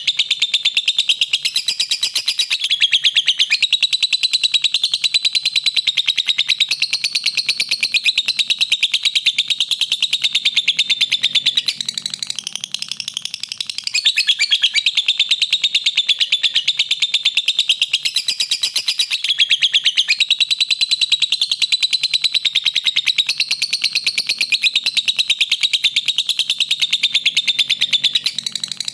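Lovebird singing a long, very rapid chattering trill in long unbroken runs, softening briefly about twelve seconds in and again near the end.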